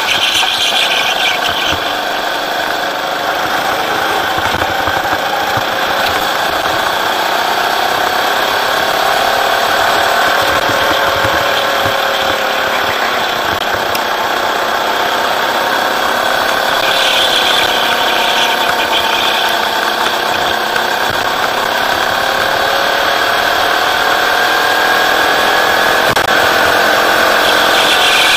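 Rental go-kart engine heard from the driver's seat at speed, its pitch rising and falling as the kart accelerates on straights and slows for corners.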